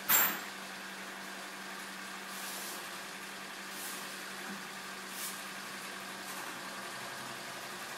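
A sharp click right at the start, then a steady low hum with room noise and a few faint rustles.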